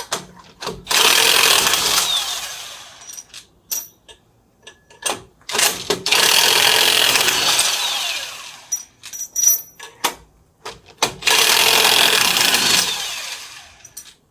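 Power wrench spinning off the wheel's lug nuts in three bursts of a second or two each, every burst fading as the nut runs loose, with short metallic clicks between them.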